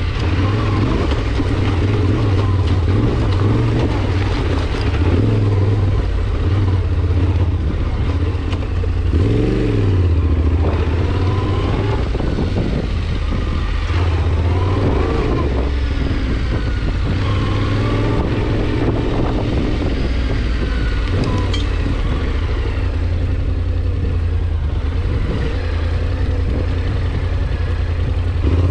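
A vehicle engine running steadily as a loud low drone, with small rises and falls in pitch.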